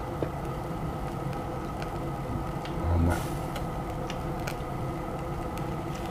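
Food grilling over charcoal: scattered small crackles and pops over a steady hum, with a brief louder noise about three seconds in.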